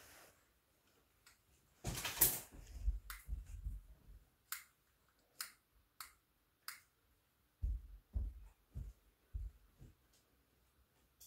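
Small plastic children's projector torch being handled, a brief rustle about two seconds in, then a run of five sharp plastic clicks as its picture disc is turned. These are followed by four soft, low knocks.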